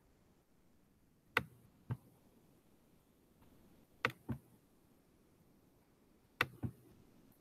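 Three pairs of short, sharp clicks about two and a half seconds apart, from a computer's input device being worked by hand, over faint room tone.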